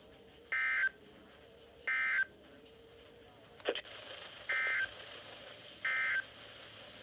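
NOAA Weather Radio EAS/SAME data bursts: four short bursts of warbling digital tone, each about a third of a second, in two pairs about a second and a half apart, with a click between the pairs. Bursts this short are the end-of-message code that closes a weekly test, heard over faint radio hiss.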